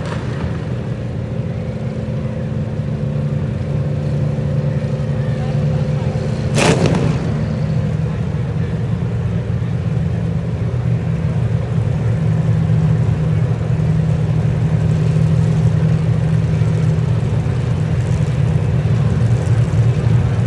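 Demolition derby car engines running and revving together, with one loud crash about six and a half seconds in.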